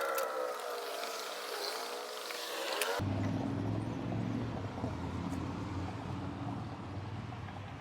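Background music dies away, then after a sudden cut about three seconds in, a Buick LeSabre's engine idles with a steady low hum; the engine has a misfire from a bad ignition coil pack.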